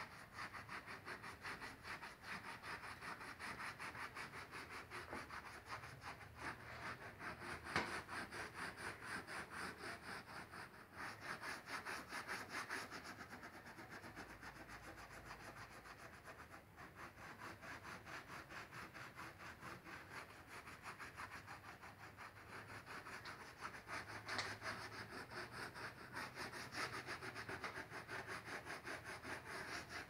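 Damp sea sponge scrubbing wet grout across a glass mosaic panel in quick, even back-and-forth strokes: wiping away excess grout. One sharper knock about eight seconds in.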